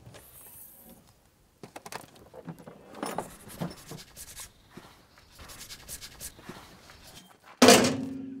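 Scattered light clicks and rustles of handling and movement, then near the end a sudden loud music hit that rings on as a held low note.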